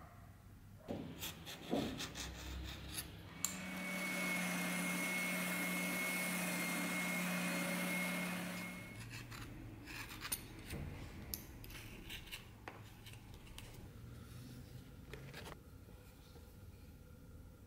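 A small benchtop belt sander runs for about five seconds, starting a few seconds in, sanding the edge of a leather knife sheath. It gives a steady motor hum with a thin high whine. Before and after, scattered clicks and rubbing come from hand work on the leather at the bench.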